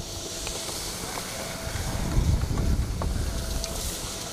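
Skis scraping over packed snow during a T-bar drag-lift ride, with wind rumbling on the microphone in uneven gusts, strongest about two seconds in.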